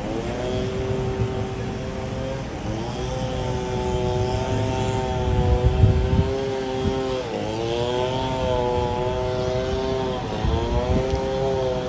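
A small engine running steadily, its pitch dipping briefly and coming back up three times.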